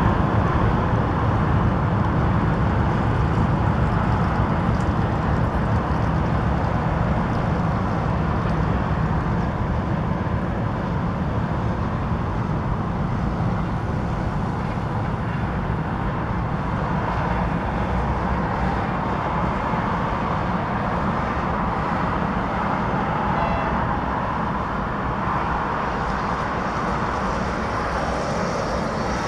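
Diesel locomotive and its train running past with a steady heavy engine drone and rolling noise, slowly easing off.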